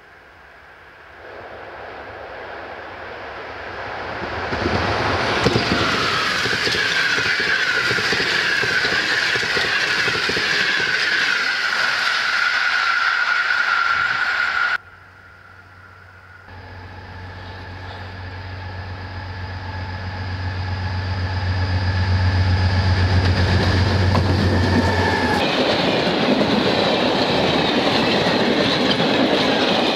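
A passenger train hauled by an EP07 electric locomotive approaches and passes at speed, its rush building to a loud roar with a high wheel squeal, until it breaks off about halfway through. Then a freight train with a PKP class 311D (Class 66) diesel locomotive approaches with a steady low engine drone, and its open coal wagons rattle past with clickety-clack on the rail joints.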